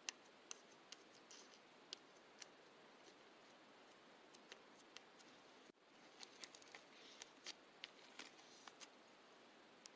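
Faint, irregular small clicks and ticks over a low hiss, with a brief dropout a little before six seconds.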